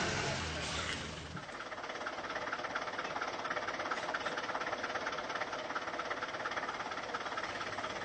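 Car engine running, low and steady for about a second and a half, then a steady, rapid clatter for the rest.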